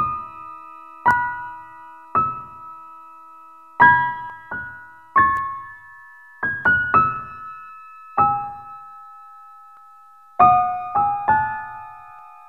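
Slow, sparse piano music. Single notes or pairs are struck about a second apart, and each rings out and fades before the next.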